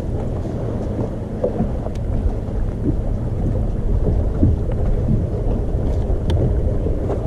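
Wind buffeting the microphone of a boat-mounted camera: a loud, steady low rumble, with light splashing of water against the boat's hull.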